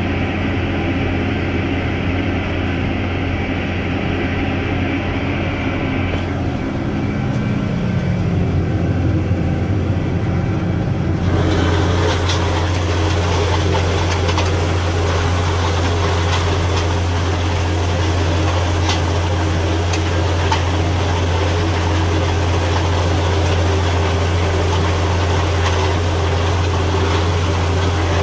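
Farm tractor engine running steadily with a strong low hum. About eleven seconds in, the sound turns noisier and brighter, with a hiss and rattle of machinery added over the engine.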